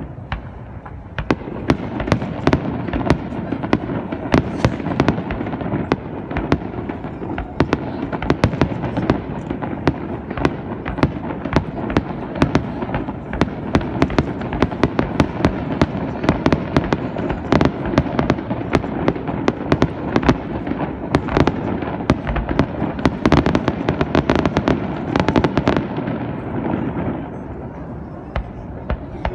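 Fireworks display: a dense, rapid barrage of shell bursts and crackles, several bangs a second over a continuous rumble. The barrage thins out near the end.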